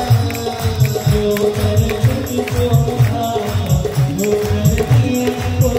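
Devotional aarti music: a steady drum beat of about two to three strokes a second, jingling hand percussion and a held melody line over it.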